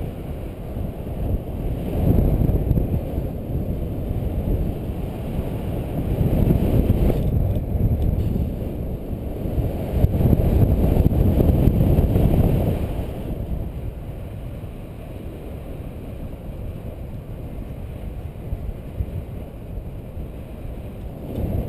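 Wind rushing over the microphone of a camera on a paraglider in flight: a low rumbling buffet that swells in gusts several times in the first half, then settles to a lower, steadier rush.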